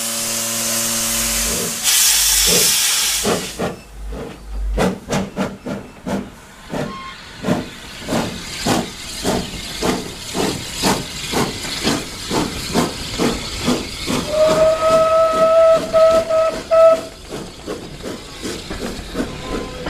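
Saddle-tank steam locomotive hissing steam, then a louder burst of hiss about two seconds in as it starts its freight train. Exhaust chuffs follow and quicken as it pulls away. Its steam whistle sounds for about two and a half seconds near the end, breaking into short toots, and then the wagons roll past.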